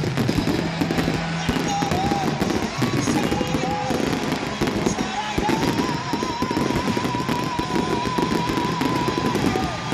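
Fireworks crackling and popping densely and without pause, over the fireworks show's background music, in which a singer holds one long wavering note from about halfway in.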